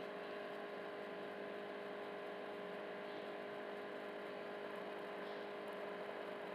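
Faint steady electrical hum with a low hiss.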